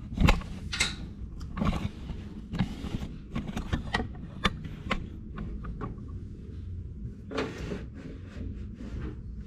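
Scattered clicks and light knocks of a frying pan and kitchen containers being handled on a gas stove top, over a steady low rumble.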